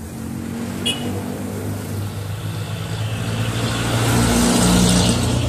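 A motor vehicle's engine running as it passes, its sound growing louder and then easing off near the end. There is a short sharp click about a second in.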